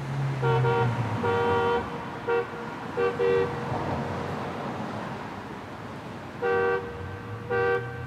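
Car horn honking in short two-note blasts: a quick run of about five honks in the first few seconds, then two more near the end. A car engine runs underneath.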